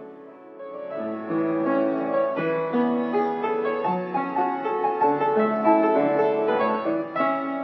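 A piano being played: a flowing melody over chords, beginning about a second in.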